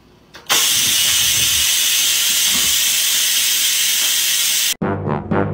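Cuckoo electric rice cooker venting steam: a loud, steady hiss that starts about half a second in, lasts about four seconds and cuts off suddenly. Brass music begins near the end.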